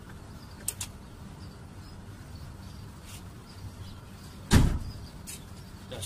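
A steady low hum with two light clicks about a second in, then a single loud thump about four and a half seconds in.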